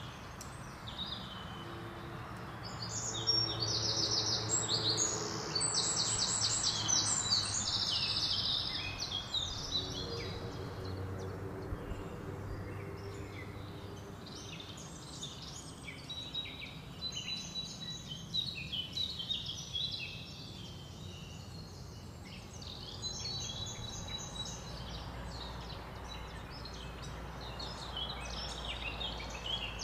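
Songbirds singing, with overlapping chirps and fast trills that are loudest from a few seconds in to about nine seconds, over a steady low outdoor rumble.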